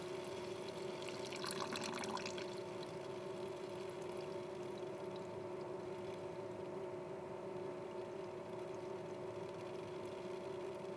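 Seawater trickling in a thin stream from a drain port on a MerCruiser 8.2L engine block, as the air-pressurised seawater cooling system drains.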